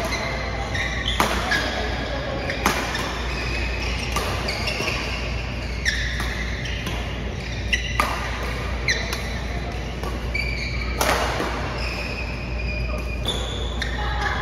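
Badminton rally: sharp strikes of rackets on the shuttlecock every second or two, with short shoe squeaks on the court mat between them and the echo of a large hall.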